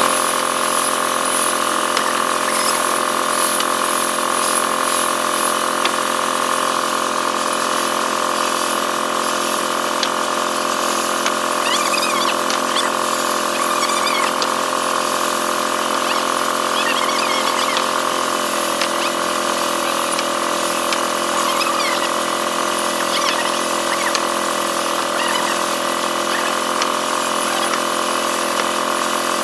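Woodworking machine running steadily with an even, tonal whine, with a few short wavering squeals about twelve, seventeen and twenty-two seconds in.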